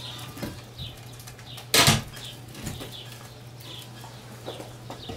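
Old roof being torn out: one loud, sharp bang about two seconds in, over a steady low hum and short high chirps recurring about twice a second.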